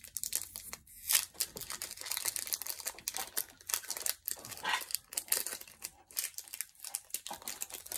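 Foil wrapper of a Pokémon card booster pack crinkling and tearing as it is pulled open by hand, in a quick irregular run of crackles, loudest about a second in.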